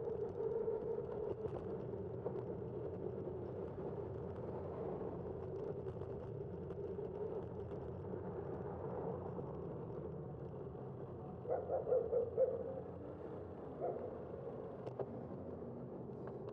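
Steady road and wind noise on a moving bicycle, with a constant low hum and rumble. About three-quarters of the way through comes a quick run of short, louder sounds, and one more shortly after.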